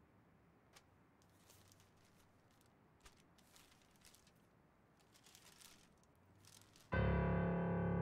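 Quiet room tone with a few faint clicks and rustles. About seven seconds in, loud background music starts suddenly: sustained piano-like keyboard chords.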